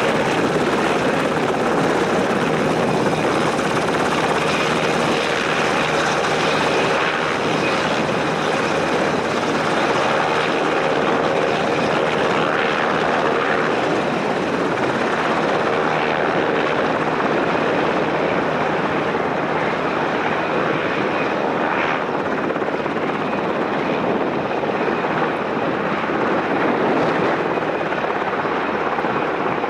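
Sikorsky Seahawk helicopter running on the ground with its main and tail rotors turning: a steady, loud engine and rotor noise with no let-up.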